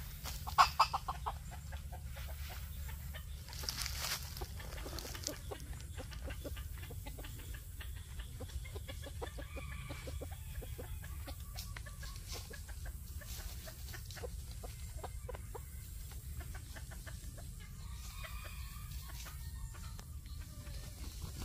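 Phoenix bantam rooster clucking, loudest in a quick run of clucks about a second in, then softer scattered clucks and short ticks.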